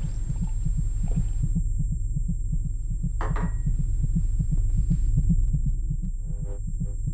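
Fast, regular low thumping like a pounding heartbeat, about four thumps a second, over a low steady hum: a tension sound effect. A short whoosh comes about three seconds in, and faint ringing tones near the end.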